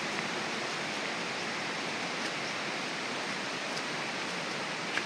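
Steady rushing of a waterfall's cascading water, with a few faint clicks over it.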